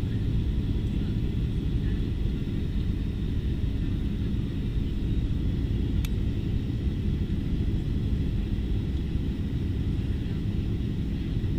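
Steady low rumble of a Boeing 757-200 airliner's jet engines during takeoff, with a single sharp click about six seconds in.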